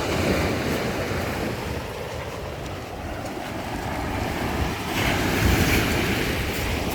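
Black Sea waves breaking and washing up the shore, with a wave surging louder about five seconds in. Wind rumbles on the microphone.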